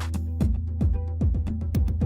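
Electronic background music with a steady kick-drum beat, sustained bass and hi-hat ticks.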